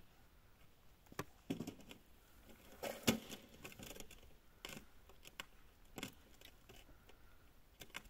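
Faint, irregular rustles and clicks of a gloved hand and winter clothing moving while jigging a small ice-fishing rod, a few a second at most, the sharpest about three seconds in.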